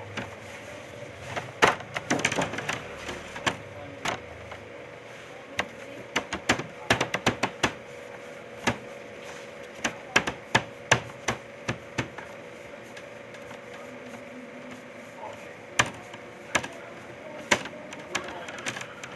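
Irregular sharp knocks and slaps of dough balls being worked and rounded by hand against a work table, coming in quick clusters, over a steady hum.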